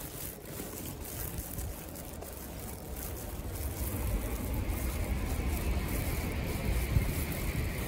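Wind buffeting the microphone outdoors: an uneven low rumble over a steady hiss, getting stronger about halfway through.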